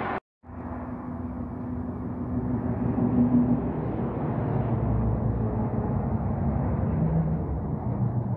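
Highway traffic: heavy trucks passing below, with a low diesel engine drone and tyre noise that swell about three seconds in and stay up. The sound cuts out briefly just after the start.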